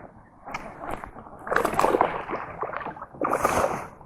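Water splashing and sloshing in several separate bursts as a hooked fish is fought at the surface and landed. The last burst, near the end, is the brightest.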